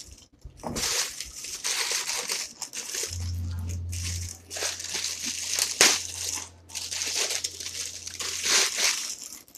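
Plastic packaging crinkling and rustling in repeated bursts as microphone-kit parts are unwrapped and handled. A steady low hum comes in about three seconds in and stops near the end.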